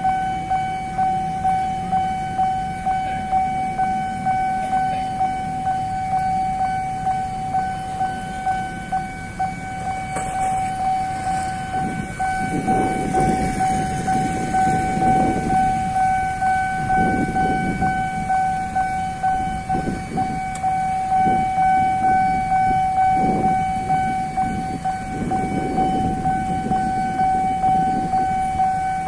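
Railway level-crossing warning bell sounding a steady electronic tone that pulses about twice a second, signalling that a train is due. Low rumbling traffic noise, from motorcycles at the crossing, rises under it in the second half.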